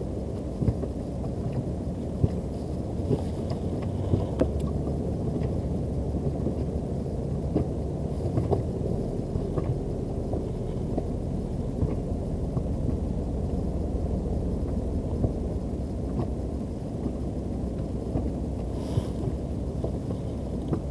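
Steady low rumble of a fishing boat at sea, with scattered small knocks and clicks throughout.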